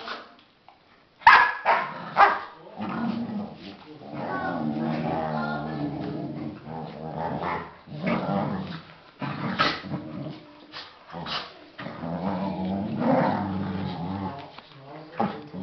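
Two Australian kelpies play-fighting, growling at length with a few sharp barks; the loudest barks come in a cluster about a second to two seconds in.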